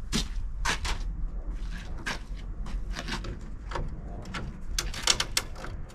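Irregular clicks, knocks and rattles of hands handling brittle plastic grille parts and marker lights, over a low steady rumble.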